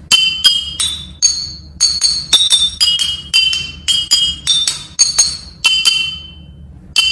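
Glass bottles filled with water to different levels struck with a wooden spoon, like a xylophone: a quick run of clear, ringing high notes at different pitches, two to three strikes a second, with a short pause about six seconds in.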